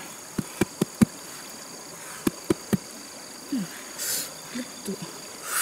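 Hand slapping the rind of a whole jackfruit: four quick hollow thumps, then three more about a second later. A steady high insect buzz runs underneath.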